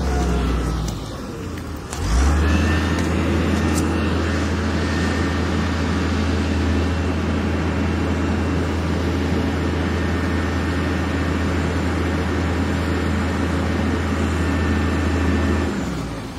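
A motor engine running steadily, dipping briefly in the first two seconds, then steady until it drops away near the end.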